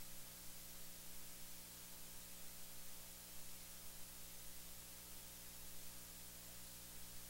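Faint steady hiss with a low steady hum beneath it, a recording noise floor with no speech or other sound.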